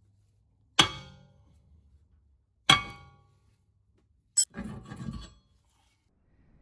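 A hammer strikes the old cast-iron rear brake disc of a Mazda 6 twice, about two seconds apart, to knock it off the hub; each blow gives a ringing metallic clang. About four and a half seconds in there is a sharp clink, then a short scraping clatter as the loosened disc slides off the wheel studs.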